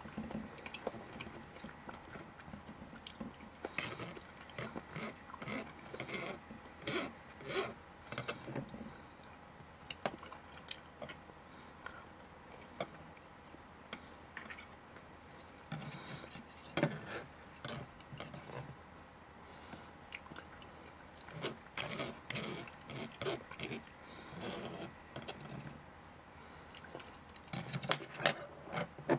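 Chopsticks clicking and scraping on a plastic cutting board and a takeaway bowl while scooping up spilled hashed beef sauce, with chewing in between. The clicks and scrapes come in irregular clusters, busier several seconds in, again past the middle and near the end.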